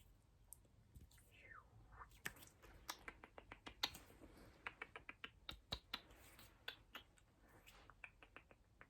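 Close-miked ASMR mouth sounds: quiet, wet tongue and lip clicks coming in quick runs of several a second, with a short gliding mouth sound about a second and a half in.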